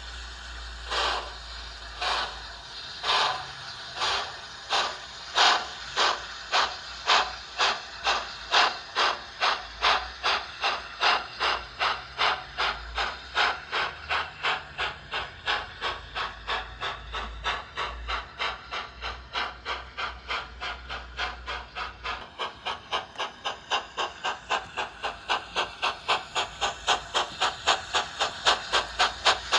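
Thompson A2 Pacific steam locomotive sound from a Locoman Sounds profile, played by a Doehler & Haass sound decoder through the speaker of a Hornby OO gauge model. The locomotive pulls away: its exhaust chuffs start about one a second and quicken steadily to several a second, with hissing steam between the beats.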